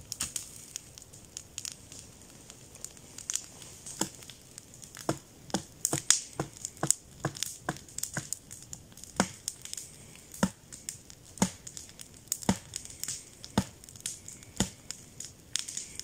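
Wood campfire crackling with irregular sharp pops and knocks, as a burning log is struck with a stick to throw up showers of sparks.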